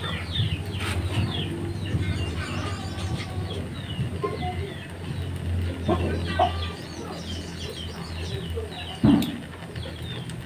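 Birds clucking and chirping in quick short calls throughout, over a steady low hum, with one sharp knock about nine seconds in.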